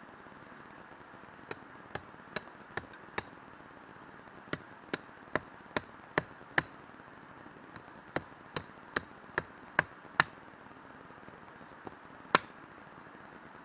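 Sharp chopping knocks at about two and a half a second, in three runs of five or six strokes, then one louder single knock near the end.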